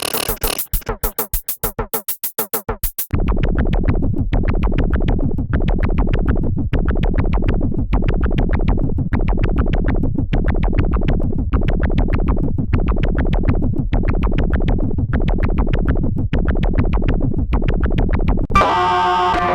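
Elastic Drums iPad drum-synth app playing electronic drum patterns. It opens with a fast run of sharp repeated hits, and about three seconds in switches to a dense, bass-heavy loop with a short break about once a second. Near the end it changes again to a pitched synth sound with a held chord.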